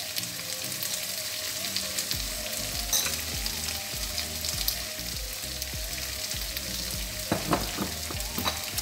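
Chopped tomato and tofu frying in a pan over a gas burner: a steady sizzle with fine crackles, and a few knocks near the end.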